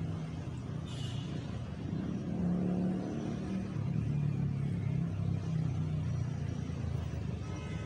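A car engine's low rumble that swells in the middle and eases off again, like a vehicle passing nearby. There is a brief high-pitched scrape about a second in.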